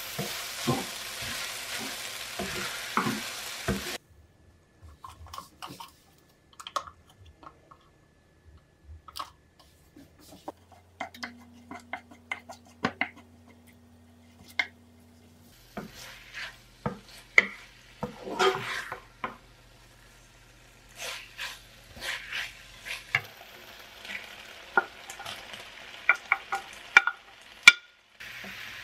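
Shredded pork stir-fried in oil in a nonstick pan, a wooden spatula scraping and tapping against the pan over a sizzle. The sizzle drops away about four seconds in, leaving sparse clicks and scrapes, and a steady sizzle returns near the end.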